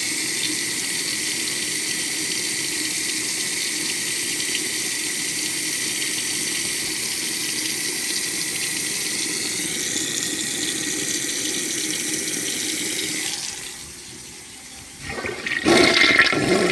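A bathroom sink tap running in a steady stream, turned off about thirteen seconds in. After a short lull a toilet flushes, with a loud, surging rush of water near the end.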